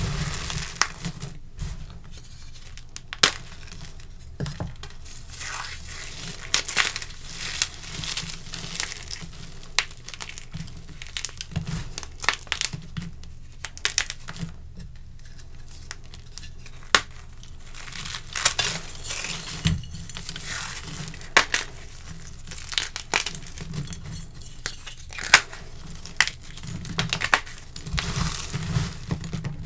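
Dyed gym chalk chunks crushed and crumbled between bare hands: dry crunching with many irregular sharp snaps and crackles.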